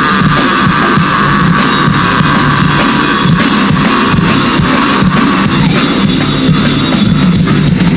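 Live heavy rock band playing an instrumental passage, the drum kit driving on with cymbals and bass drum under the guitars.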